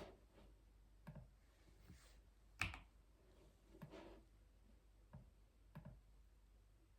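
Scattered single keystrokes on a keyboard, faint and irregular, about eight clacks with one louder one a little before the middle.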